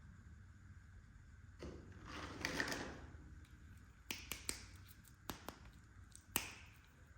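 Small plastic pieces of a Hello Kitty toy kitchen set being handled: a brief rustle about two seconds in, then a few sharp clicks and taps as pieces are set down or snapped together.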